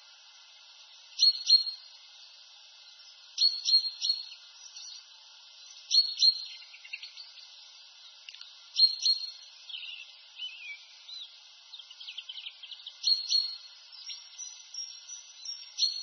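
Songbirds singing: a short, loud phrase of a few quick high notes repeats about every two to three seconds, with softer twittering in between.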